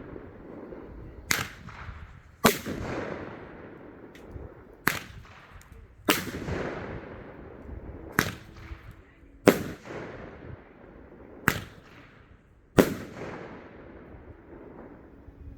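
Fireworks going off: eight sharp bangs spaced a second or two apart, each trailing off in a long echo.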